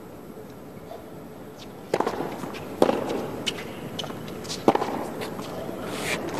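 Tennis ball struck by rackets in a rally: a serve about two seconds in, the return just under a second later and another stroke near five seconds in, with fainter ticks of the ball bouncing between them.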